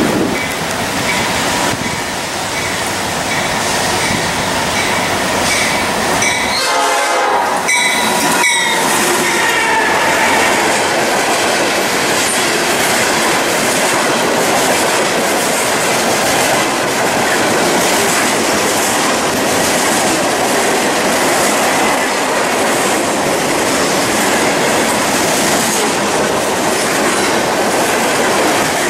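Freight train passing close at speed. The locomotive's air horn sounds as it approaches, loudest about seven to ten seconds in, and its pitch drops as the engines go by. After that comes the steady rumble and clickety-clack of loaded hopper cars rolling past.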